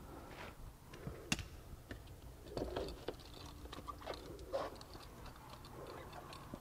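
Quiet handling noises as a car battery's negative cable and its clamp are moved aside by hand: scattered light clicks and rustles, the sharpest click about a second and a half in.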